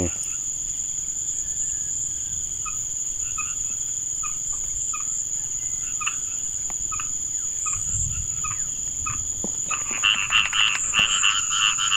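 Frogs calling in a rice paddy over a steady high insect drone. Short calls come about twice a second, and from about ten seconds in a loud, fast-pulsing frog chorus takes over.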